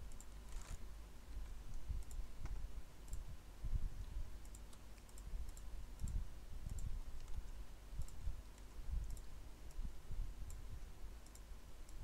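Faint, irregular clicking of a computer mouse, a few clicks at a time, over a steady low rumble from the recording setup.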